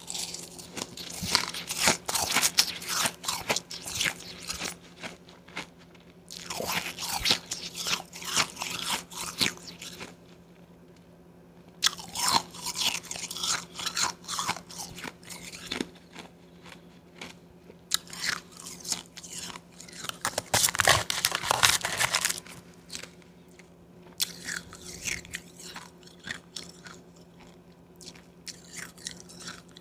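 Close-up crunching and chewing of mouthfuls of powdery blended ice, in five bursts of a few seconds each with short pauses between.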